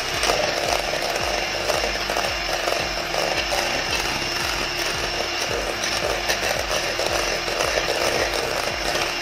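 Electric hand mixer running at high speed, its twin beaters whipping cream in a glass bowl: a steady motor whir.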